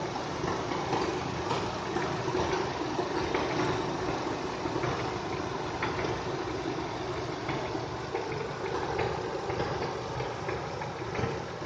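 Nissan Almera G15 engine idling steadily, with faint irregular knocking over the idle, the knock the owner is investigating.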